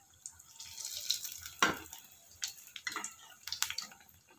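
Semolina batter cakes deep-frying in hot oil: a steady sizzle with irregular crackles and pops, and one louder sharp click about one and a half seconds in.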